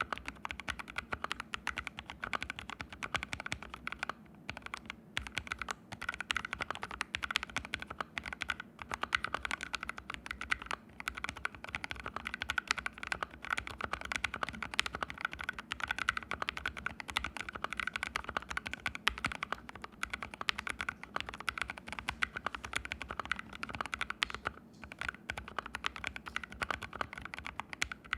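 Fast, continuous typing on an ABKO AR61 mechanical keyboard fitted with fully lubed Haimu Sea Salt switches, the keyboard sitting directly on the floor with no pad under it. There are brief pauses about four seconds in and again near the end.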